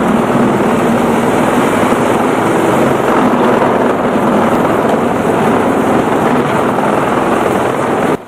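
Heavy machinery running under load: a loud, steady mechanical din with a low hum. It cuts off suddenly near the end.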